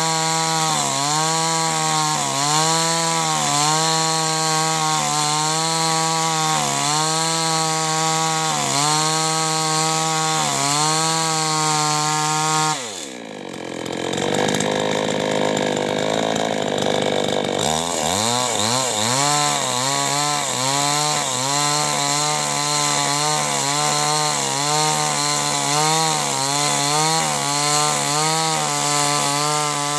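Two-stroke chainsaw at full throttle cutting wood, its pitch dipping and recovering about once a second under load. About thirteen seconds in it drops off throttle toward idle, then revs back up about five seconds later and goes on cutting.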